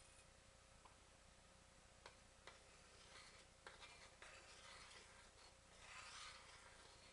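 Near silence: faint room tone with a few soft clicks and two stretches of quiet rubbing or scraping, one a few seconds in and one near the end.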